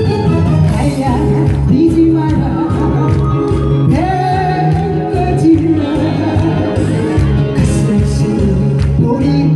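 Live singing over a recorded backing track with a steady beat, part of a medley of Korean songs, with long held notes.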